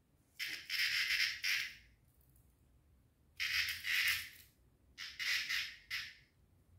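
Scratching and scraping in four short bursts, the second-to-last quickly broken into strokes: a cat's claws raking at a tile floor and the base of a door frame as it paws at its prey.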